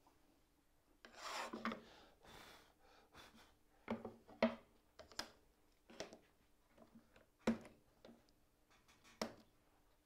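Small pieces of wood slid and set down on a plywood bench top: a rubbing scrape about a second in, then a handful of light wooden knocks and clicks.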